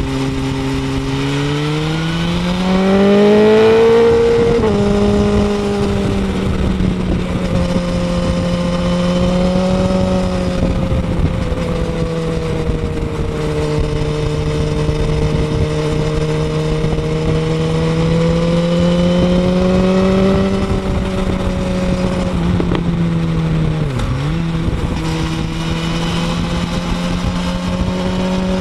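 BMW S1000RR sportbike's inline-four engine heard close up through a Pro-Race aftermarket end can. The engine revs up strongly over the first few seconds and drops back sharply about four seconds in. It then holds a steady pitch, with one brief dip and recovery a little past the two-thirds mark.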